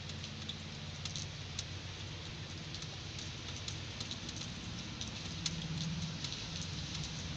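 Heavy rain falling steadily, with many sharp drops ticking and pattering close by. A steady low hum runs underneath and grows slightly louder about five seconds in.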